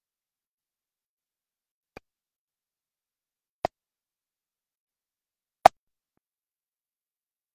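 Three short sharp clicks against dead silence, about two seconds apart, the first faint and the last the loudest.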